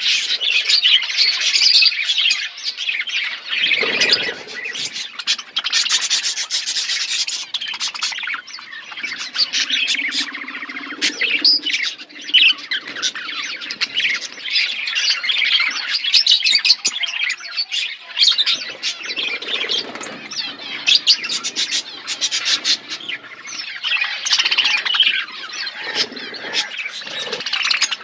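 A flock of budgerigars chattering continuously, a dense mix of overlapping chirps and squawks.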